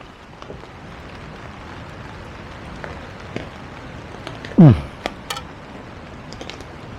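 Steady rain falling. About four and a half seconds in, a brief loud sound slides steeply down in pitch, followed by a couple of sharp cracks.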